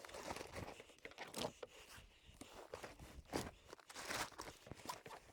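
Irregular rustling, scraping and light knocks of gear being handled aboard a fishing kayak.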